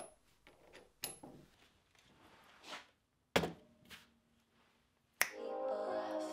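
A few light clicks and taps, then about five seconds in a click as a small tabletop radio is switched on and music starts playing from its speaker.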